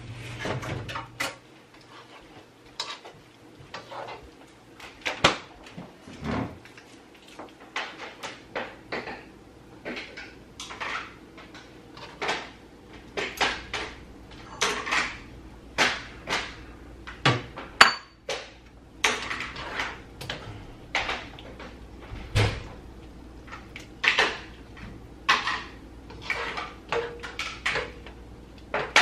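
A spatula and chopsticks knocking and scraping against a wok as udon noodles in curry sauce are stirred: a long run of irregular clacks, one or two a second.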